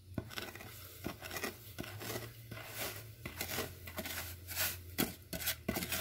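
Granulated sugar being poured from a container into a blender jar: irregular gritty rustling with many sharp little ticks and taps.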